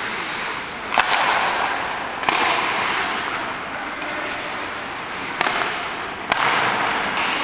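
Hockey sticks striking the puck in four sharp cracks on passes and shots, each ringing out in the rink, over a steady hiss of ice-rink noise.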